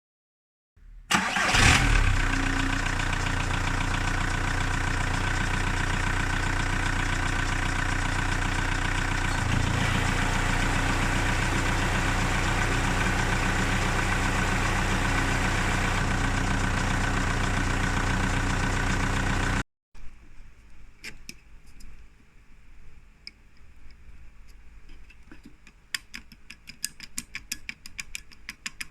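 Volkswagen Caddy Mk2 engine starting after a brief crank about a second in, then idling steadily with the strange idle noise that the owner links to the clutch. It cuts off abruptly and is followed by a much quieter run of irregular clicks and ticks.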